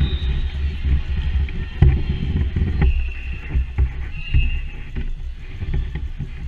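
Gym ambience during a volleyball match: a steady low rumble with scattered sharp knocks and thumps, and a brief high tone about four seconds in.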